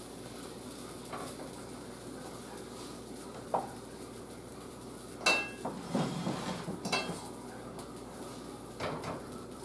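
Metal kitchen utensils and cookware being handled: a few scattered clinks and knocks. The sharpest comes about five seconds in and rings briefly, and there is a short cluster of knocks a little after it.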